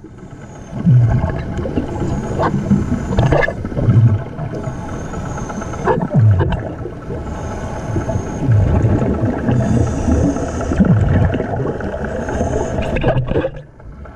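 Underwater sound of a hookah diver breathing through a compressor air hose: low gurgling surges of exhaled bubbles every second or two, with a few sharp clicks. Under them runs a faint steady hum from the surface air compressor's engine.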